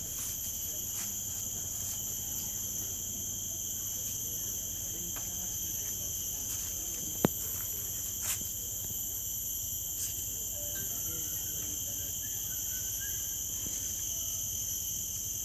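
Steady chorus of forest insects, a continuous shrill at several high pitches, with one sharp click about seven seconds in and fainter clicks around eight and ten seconds.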